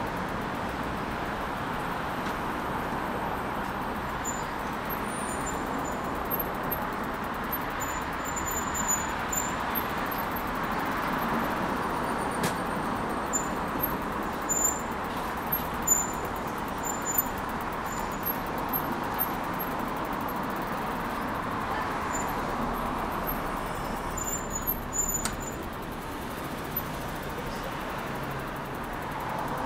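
Steady traffic noise from a busy multi-lane urban ring road, a continuous rush of tyres and engines, with short high chirps scattered through it.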